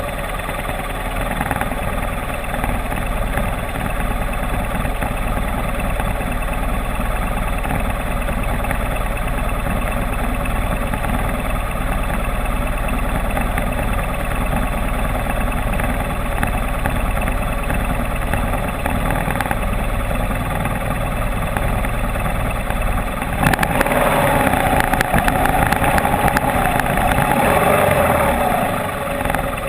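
Enduro motorcycle engine running during an off-road ride, steady for most of the stretch and louder for several seconds near the end.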